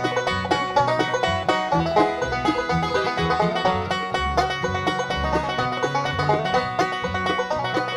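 Bluegrass band playing an instrumental intro: rapid five-string banjo picking over acoustic guitar, mandolin and an upright bass walking the low notes.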